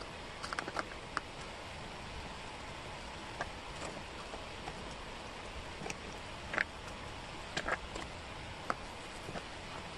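Small wooden jigsaw puzzle pieces clicking and tapping as they are picked up, handled and fitted into place: a scattering of short, irregular clicks over a steady background hiss.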